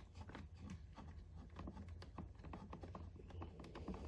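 Faint, irregular light metallic clicks and taps as a 10 mm wrench works a hard-to-reach carburetor mounting nut loose on a small generator engine, over a low steady hum.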